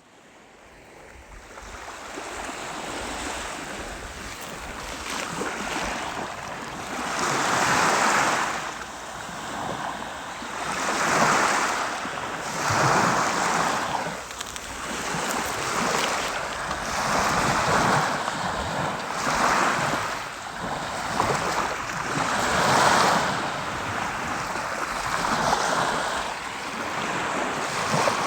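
Sea waves breaking and washing on the shore, one surge of surf every two to three seconds over a steady hiss. The sound fades in over the first two seconds.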